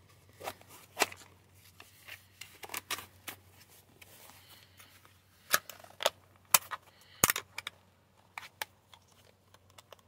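Hard plastic seat belt guide from a 1990 Pontiac Firebird being bent and pried over the belt's metal base by hand: irregular clicks, snaps and rubbing of plastic. The sharpest snaps come in a cluster a little past the middle.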